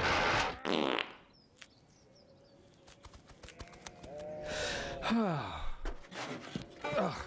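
Cartoon comedy sound effects: a short hiss followed by two falling-pitch, sputtering tones that slide down, about two seconds apart.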